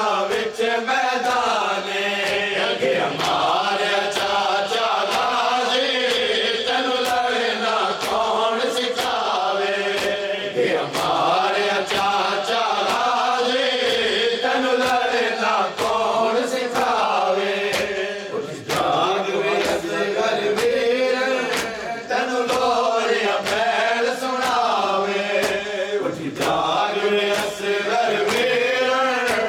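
Men chanting a noha, a Shia lament, led by a reciter at a microphone. The group keeps time by beating their chests (matam), giving a steady run of sharp slaps under the voices.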